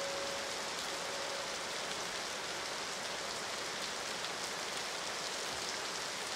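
Steady rain falling, an even hiss of rain on a surface. A single held musical note fades out during the first two seconds.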